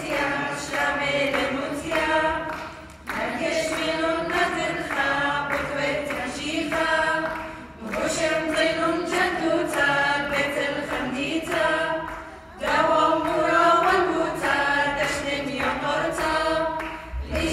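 Small mixed choir of men's and women's voices singing an Assyrian Church of the East hymn a cappella, in phrases of about four to five seconds with short breaks between them.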